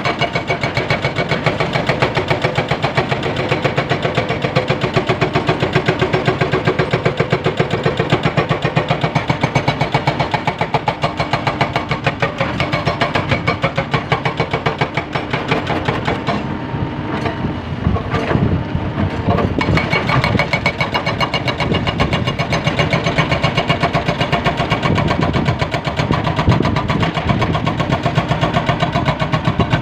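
Hydraulic rock breaker on a Caterpillar 320B excavator hammering limestone in rapid, steady blows, with the excavator's diesel engine running underneath. The rhythm breaks up briefly a little past halfway, then the steady hammering resumes.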